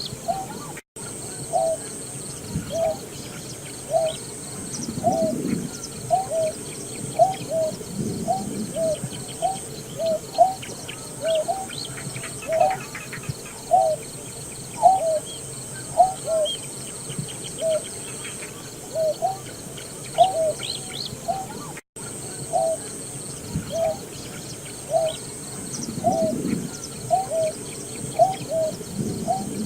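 Greater painted-snipe calling: a long run of short, low hooting notes, each with a slight upward hook, repeated about one and a half times a second. A faint high steady whine and a few thin high chirps lie behind it, and the sound cuts out for an instant twice.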